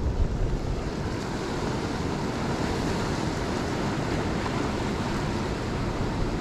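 Steady wind rumbling on the microphone, mixed with the wash of sea surf.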